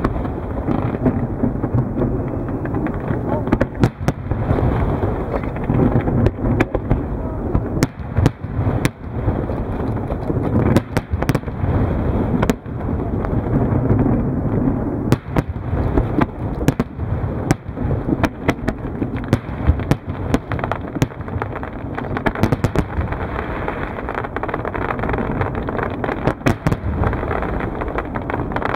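Fireworks display going off continuously: a dense low rumble of shells bursting, with many sharp cracks and bangs scattered throughout.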